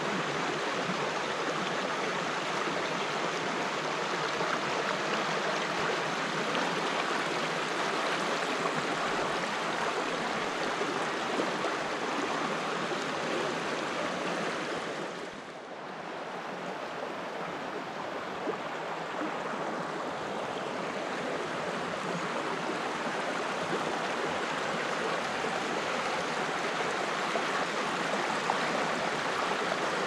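The Vartry River rushing over rocks and small rapids: a steady, full rush of running water that dips briefly about halfway through, then comes back.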